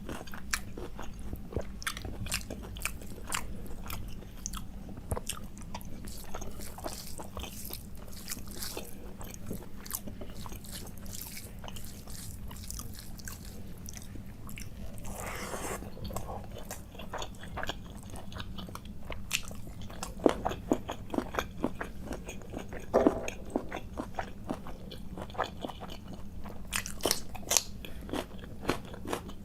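Close-miked eating: a person chewing and biting mouthfuls of curry and rice, a dense run of wet mouth clicks and smacks with some crunches, and one longer noisy breath or slurp about halfway through.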